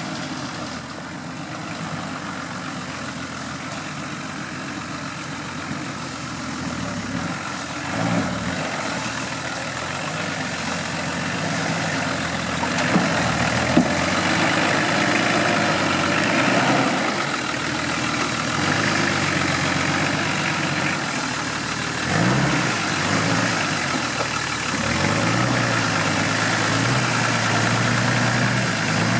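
Off-road 4x4 vehicle's engine running under load, its pitch rising and falling as the throttle is worked, with two brief knocks about halfway through.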